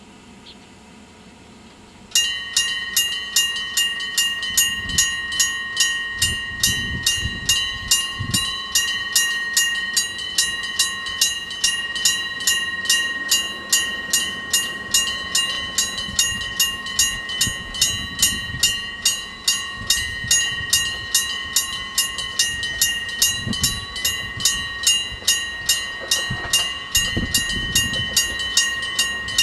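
Electric-bell level-crossing alarm, a bell struck by an electric hammer, starts suddenly about two seconds in and rings on in rapid even strokes, about two to three a second, each stroke ringing bright and metallic. It is the crossing's warning that a train is approaching.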